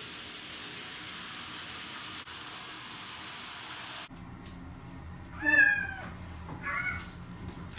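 A wet cat meowing in the middle of its bath, one loud drawn-out meow and then a shorter one. Before that, a steady rush of running shower water that cuts off suddenly.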